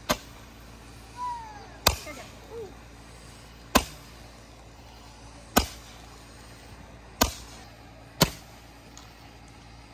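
Handheld Roman candle firing six shots, a sharp pop every one and a half to two seconds as each ball is launched.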